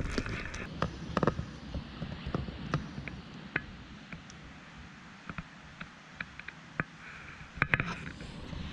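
Wet leaves and undergrowth rustling as plants are handled and pushed aside, with scattered light ticks and taps throughout and a louder burst of rustling and clicks near the end.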